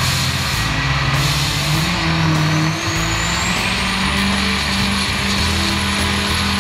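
Ford Super Duty pickup's diesel engine running hard under load on a chassis dyno, with a high whine that climbs in pitch from about two seconds in and then holds high.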